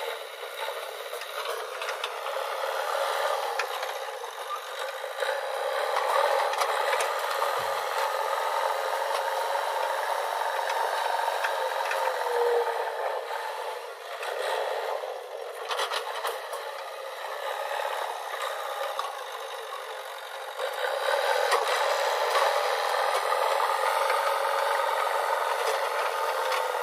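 JCB 3DX backhoe loader working: its diesel engine running, growing louder and quieter as the load changes, with the rattle and scrape of the loader bucket and its linkage.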